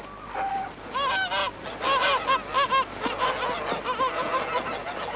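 Geese honking: a rapid series of short calls that starts about a second in, several overlapping.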